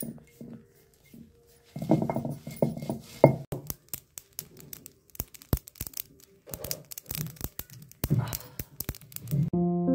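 Black mustard seeds crackling and popping as they dry-roast in a hot steel kadhai while being stirred with a slotted spoon, a quick run of sharp separate clicks. Louder knocking comes in the first few seconds, and piano music starts just before the end.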